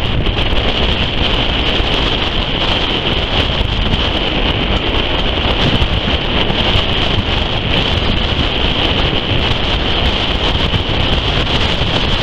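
Steady wind rushing over the microphone from a moving steam railway carriage, with the train's running noise beneath it.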